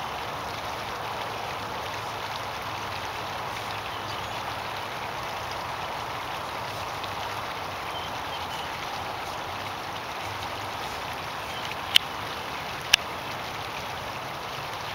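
A steady hiss of outdoor background noise, with two short sharp clicks about a second apart near the end.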